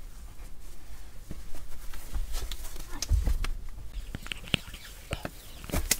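Someone scrambling over loose dirt and stones in a narrow cave passage: scuffs, crunches and small knocks, with low rumbling thumps around two and three seconds in and a cluster of sharper clicks in the second half.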